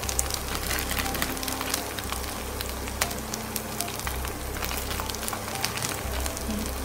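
Spätzle and sliced onions frying in butter in a pan over medium-high heat: a steady sizzle with many small crackles and pops.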